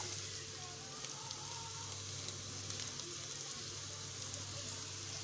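Chopped bell peppers and spring onions sizzling as they stir-fry in an aluminium wok over a gas flame: a steady frying hiss, with a faint low hum underneath.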